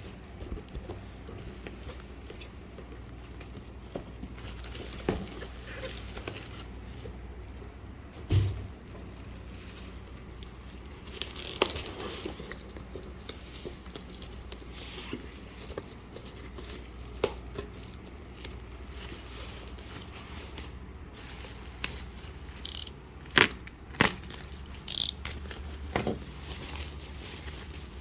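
A cardboard parcel box and its packaging being handled and opened by hand: intermittent crinkling, tearing and rustling with scattered knocks and taps, and a cluster of sharper knocks near the end.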